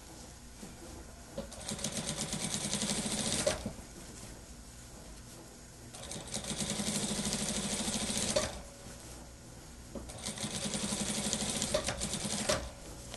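Computerized industrial sewing machine stitching a dress shirt in three short runs of two to three seconds each, the needle's fast rattle building up speed in each run. Each run ends with a sharp click, with quiet pauses between runs while the fabric is repositioned.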